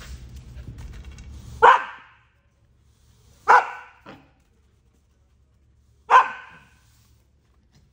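A puppy barks three times, about two seconds apart, each bark loud and sharp with a short echo, plus a small yip after the second. Before the first bark, a push broom scrapes along the concrete floor and stops.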